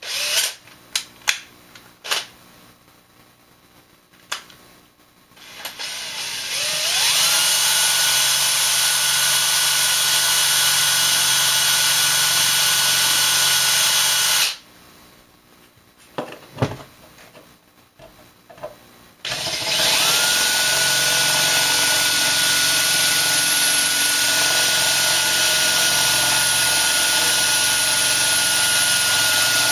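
Electric drill with a bit in, run twice: a few clicks, then the motor spins up with a rising whine about five seconds in and runs steadily for some eight seconds before stopping. After a few more clicks it starts again about two-thirds of the way through and runs steadily on.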